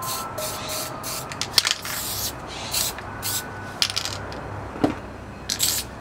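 Aerosol spray paint can spraying in short hissing bursts, one after another, each lasting well under a second, with a couple of sharp clicks of the cans in between.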